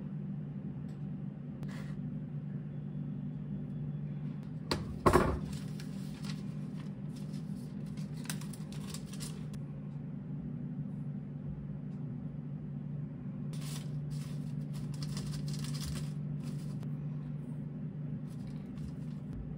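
Handling noises of Korean rice cakes (tteok) and sausages being pushed onto bamboo skewers and set down on a wire rack: scattered scratchy clicks and light knocks, with one sharp clatter about five seconds in. A steady low hum runs underneath.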